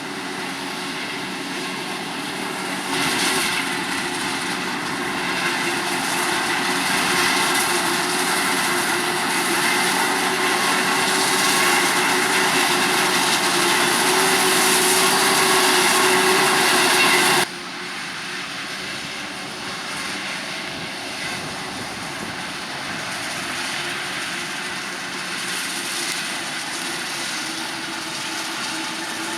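Heavy farm machinery running during maize harvesting, a steady engine sound that grows louder over the first half. A little past halfway it cuts off suddenly to a quieter, steady machine sound.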